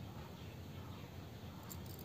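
Faint scratchy rustling of a crochet hook drawing wool yarn through loops while a puff stitch is worked, with a few faint clicks near the end.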